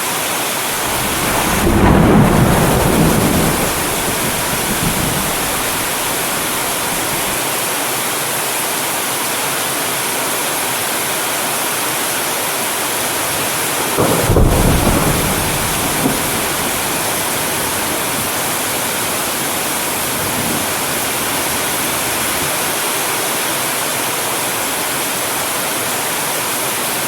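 Steady rain falling, with distant thunder rumbling twice: a low roll about two seconds in that fades over a few seconds, and another about halfway through.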